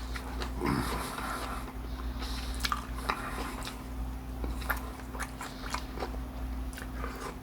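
Close-up chewing and biting of crispy fried fish tacos, with scattered crunches and wet mouth clicks over a steady low hum.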